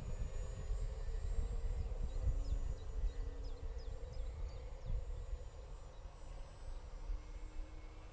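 Faint steady drone of an RC twin model plane whose piezo sound-effect card imitates its engines, under a gusty low rumble of wind on the microphone. A bird chirps several times, about two to four and a half seconds in.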